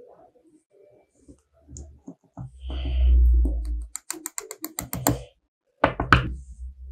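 A run of quick, light clicks and taps from small hard parts being handled, with a rapid string of about eight clicks about four seconds in and two sharper knocks near the end.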